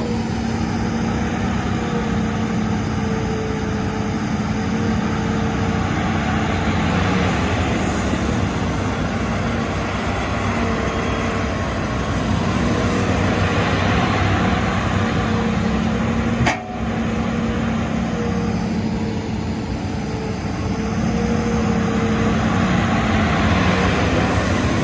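Hitachi Zaxis excavator's diesel engine running steadily, with a short click about two-thirds of the way through.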